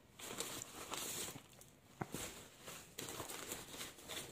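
Faint rustling and crinkling of paper packing material in a cardboard box, with a few light clicks and knocks, the sharpest about two seconds in.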